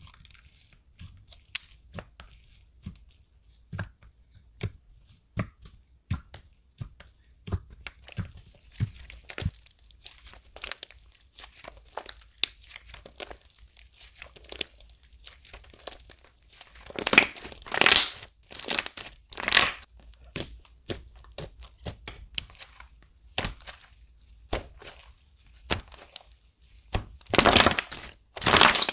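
White slime topped with clay fruit slices being stretched, folded and pressed by hand, giving a run of sharp sticky pops and clicks. Two denser, louder crackling stretches come a little past halfway and near the end.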